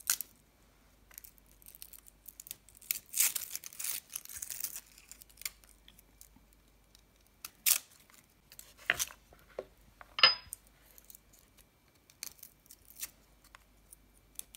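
Papery garlic skin crackling and tearing as cloves are peeled with a small paring knife, with scattered sharp clicks. A denser stretch of rustling comes about three to five seconds in.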